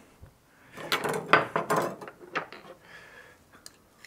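A hand-held metal garlic press squeezing a garlic clove: a cluster of creaks and squishy clicks for about a second, then a few lighter clicks and scrapes as the pressed garlic is worked off the press.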